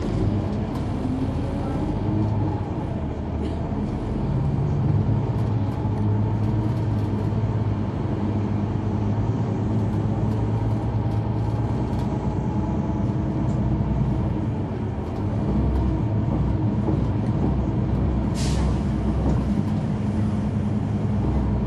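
The Caterpillar C9 diesel engine of a 2004 Neoplan AN459 articulated transit bus running under way, heard from the back of the cabin. The engine note shifts about 4 and 15 seconds in, and a short burst of air hiss comes near the end.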